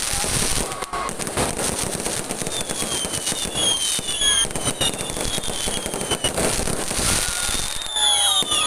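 Fireworks going off in a continuous barrage of bangs and crackles, with several high whistles gliding downward in pitch through the second half.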